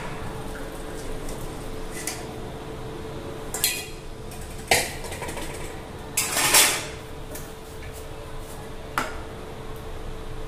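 Metal saucepan and kitchen utensils clattering on the counter: a few separate clinks and knocks, the longest and loudest run about six seconds in.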